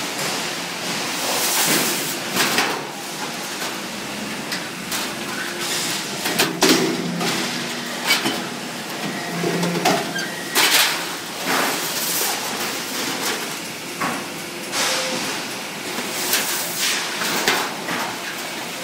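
Metal workshop noise at a multi-station hydraulic punching press for steel door panels: irregular metallic knocks and clanks, over a dozen, spread over a steady hiss.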